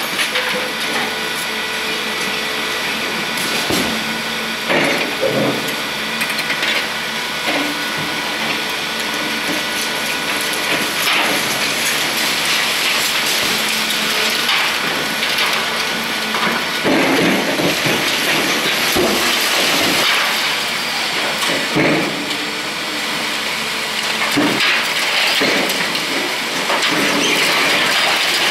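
Liebherr R944 demolition excavator running, with a steady engine and hydraulic whine as its long-front arm works. Several knocks and crashes of concrete breaking and debris falling come through it, clustered a few seconds in, past the middle and near the end.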